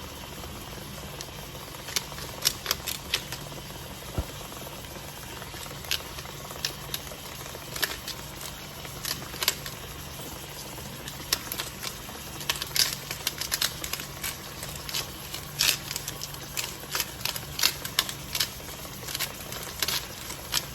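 Beef roast searing in hot oil in a skillet: irregular crackles and pops of spattering fat, sparse at first and coming more often in the second half, over a steady low hum.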